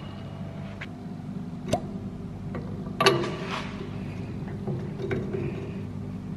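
A close-fitting stainless steel pin being worked in and out of a freshly bored bronze propeller hub, with a few light metal knocks, the loudest about three seconds in with a short ring, as air trapped in the bore pushes back on the pin: the bore is sealing, a sign of a tight fit with no play. A low steady hum runs underneath.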